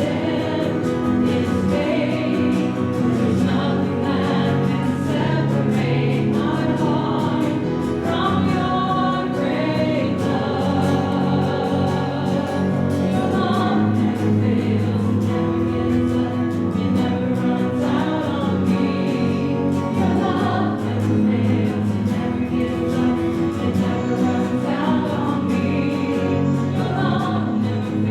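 A choir singing Christian music, many voices holding sustained notes.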